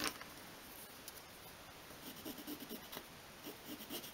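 A light tap near the start, then from about two seconds in a pencil scratching across card in quiet, short, irregular strokes.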